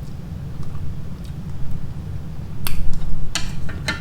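Eating sounds while chewing mussels and ramen: a few sharp, wet mouth clicks, two or three close together near the end.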